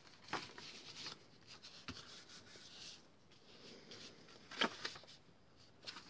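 Sheets of paper and cardstock being handled and laid down on a table: soft rustling and sliding, with a few brief crisp taps and crackles.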